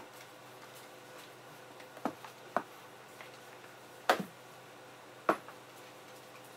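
Four sharp knocks and clacks from a floor mop being pushed and bumped about; the loudest comes about four seconds in. A faint steady hum runs underneath.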